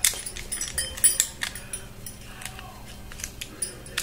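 Metal clicks and clinks from an antique lever mortise lock and its small steel parts being handled and worked. A quick irregular run of sharp clicks comes in the first two seconds, then a few scattered ones.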